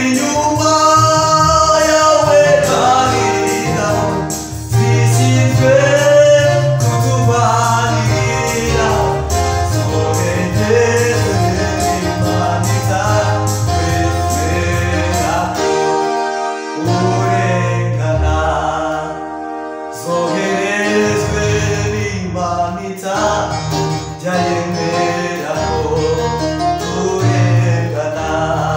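Men singing a gospel praise song to an electronic keyboard, with held bass notes under the voices.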